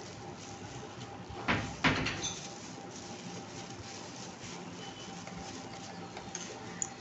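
Two quick knocks about a third of a second apart as a toddler handles objects. The second knock is louder and has a short rattle after it.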